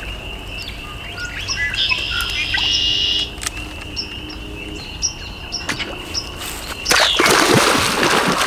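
Birds chirping over a steady high-pitched drone. About seven seconds in, a loud burst of noise takes over.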